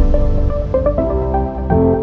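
Electronic background music: a melody of short, quickly changing notes over a deep bass.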